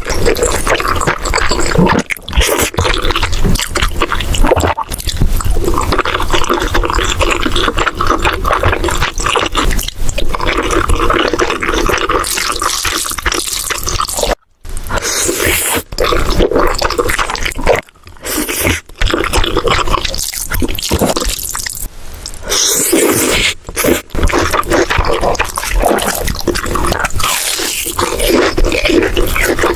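Close-miked eating sounds: wet chewing and slurping with many small clicks, broken by a few brief silent cuts.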